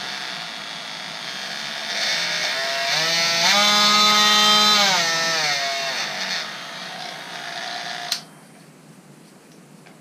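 MEEC Tools 18V cordless oscillating multi-tool running with no load on a small 1.5 Ah battery that is not fully charged: a steady buzz that climbs in pitch about three seconds in, holds, then drops back. It cuts off with a click about eight seconds in.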